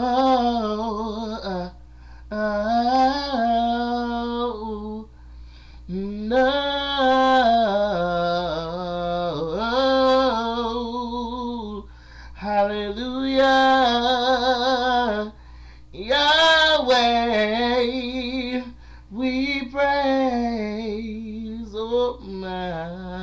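A man singing solo, unaccompanied, in about seven long phrases of held notes with vibrato and sliding runs, with short breaks for breath between them.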